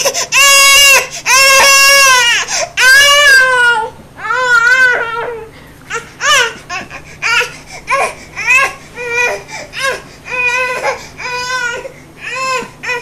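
A toddler crying hard: four long, loud wails in the first few seconds, then shorter sobbing cries in quick succession.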